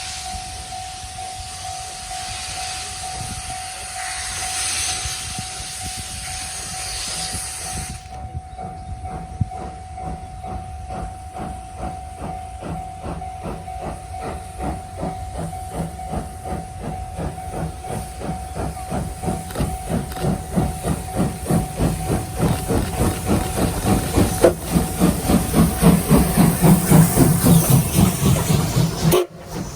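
C57 steam locomotive approaching under power: a hiss of steam over the first few seconds, then its exhaust chuffing in an even beat that grows steadily louder. A level crossing alarm sounds a steady tone throughout, and the sound cuts off abruptly just before the end.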